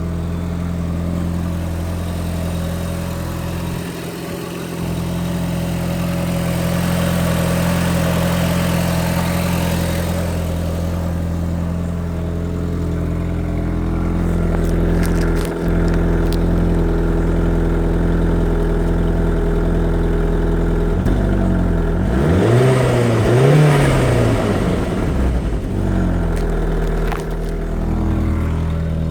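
The 1.8-litre turbocharged four-cylinder engine of a 2001 Audi TT 225 idling steadily. About three quarters of the way in it is revved up and let fall back, with turbo flutter as the throttle closes.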